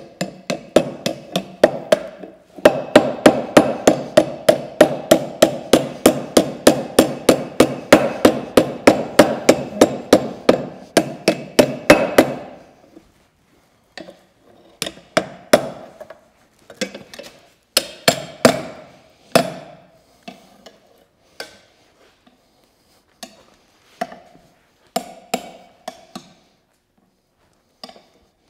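Hand hammer striking a red-hot steel bar on an anvil: a fast, even run of ringing blows, about three to four a second, for roughly the first twelve seconds, then fewer, slower blows with pauses between them.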